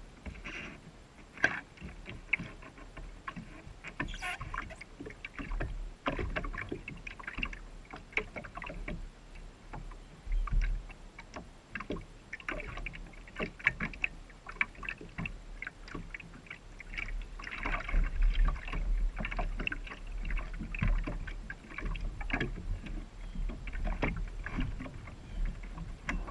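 Small boat on the water: irregular splashes and knocks of water against the hull, over a low rumble.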